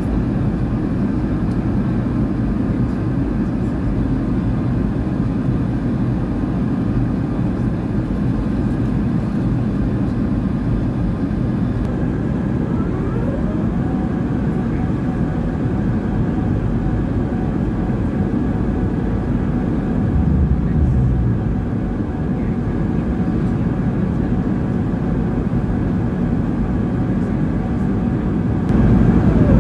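Steady engine and airflow noise of an Airbus A380 in flight, heard from inside the cabin beside the wing, during the approach to landing. The noise is mostly low, and gets louder just before the end.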